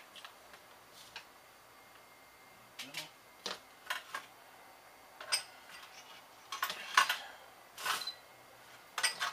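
Sharp clicks and light taps, about a dozen at uneven intervals, as a handheld desoldering gun and its metal nozzle are worked against a circuit board, with the loudest cluster about seven seconds in.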